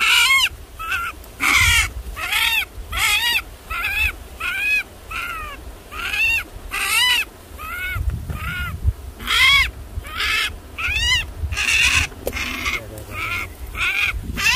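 A small wild animal caught in a trap crying in distress: a long run of short, high squealing calls, each rising then falling in pitch, about two to three a second.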